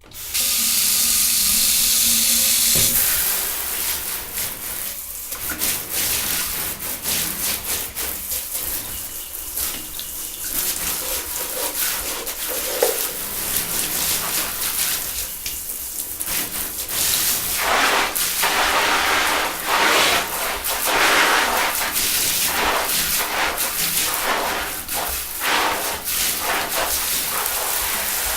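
Shower turned on with a sudden rush of spray. For about three seconds it runs as a steady hiss, then the spray splashes unevenly as the shower is used.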